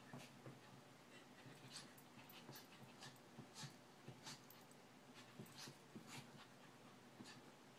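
Very quiet sounds of a small dog play-fighting with a kitten on a woven rug: faint, irregular scuffs and ticks of paws and claws scrabbling on the rug, with soft dog breathing.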